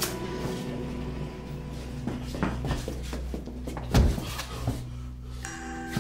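A few light knocks and clicks, then one loud thump about four seconds in, over a steady low hum; a held music note comes in near the end.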